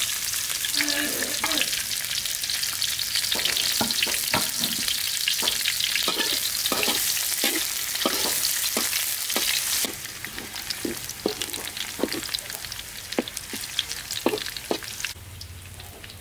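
Chopped garlic, chili and spring onion frying in hot oil in a steel wok, a steady sizzle with a metal spatula clacking and scraping against the pan as they are stirred. The sizzle drops suddenly about ten seconds in, and the spatula strokes thin out near the end.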